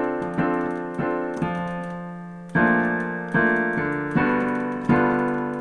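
Digital piano playing a simple chord accompaniment: block chords struck about once or twice a second, each ringing and fading before the next.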